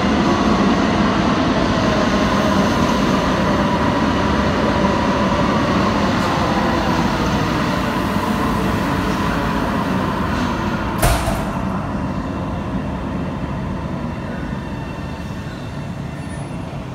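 OC Transpo Alstom Citadis Spirit light-rail train running past on the track, its wheels and motors making a steady rumble with a faint whine that drops slightly in pitch; the sound slowly fades. A single sharp clack about eleven seconds in.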